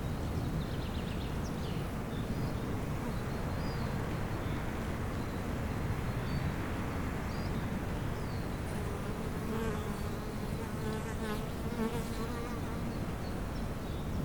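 A bee buzzing, its hum steadiest in the second half, with small birds chirping faintly over a low outdoor background.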